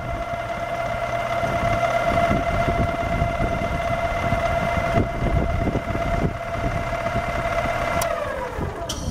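Smithy 3-in-1 lathe-mill's drill press head running, a steady motor and spindle whine. About eight seconds in there is a click and the whine falls in pitch and dies away as the drill press is switched off.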